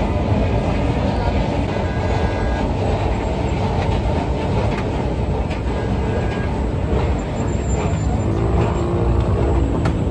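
Steady rumble of busy street traffic, mixed with wind buffeting the microphone.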